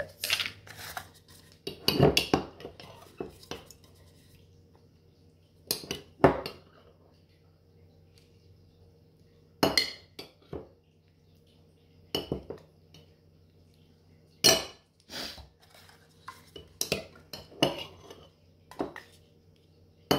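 Metal spoon clinking and scraping against a glass jar while applesauce is spooned into small plastic cups, with plastic cups and lids knocked and set down on a countertop. The sounds come as scattered clinks and knocks with short quiet gaps between them.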